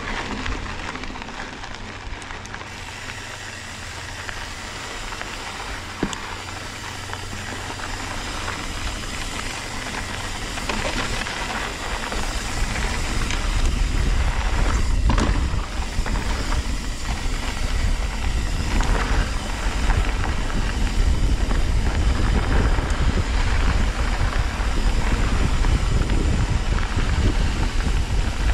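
Mountain bike being ridden on a dirt trail: tyres rolling over dirt and rock, with wind rumbling on the microphone. The rumble and overall noise grow louder from about twelve seconds in, and there is a sharp click at about six seconds.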